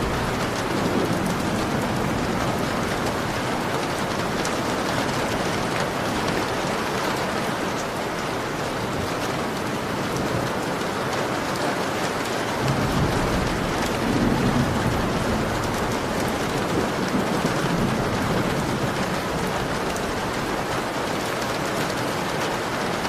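Heavy rain falling steadily, with a low roll of thunder that rumbles in about halfway through and fades away over several seconds.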